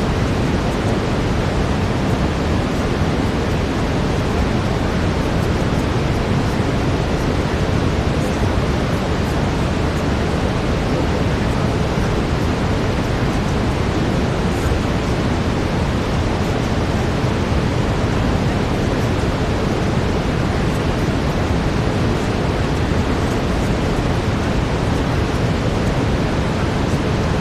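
Steady brown noise: an even, unchanging rush weighted toward the low end.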